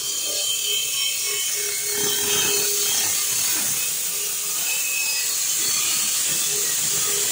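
Metal scraping and rubbing as a freewheel removal tool is fitted and worked on an 8-speed bicycle freewheel, over a steady hiss.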